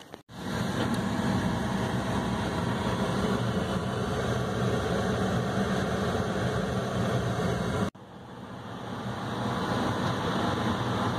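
Steady rumble of a car's engine and tyres heard from inside the cabin while driving, which cuts off about eight seconds in; after that, a fainter hiss that slowly grows louder.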